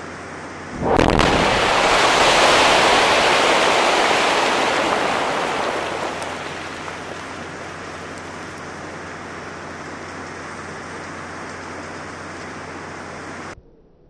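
Quarry rock blast: a sudden boom about a second in, followed by a heavy rumble that fades over several seconds, then a steady hiss of wind on the microphone until the sound cuts off near the end.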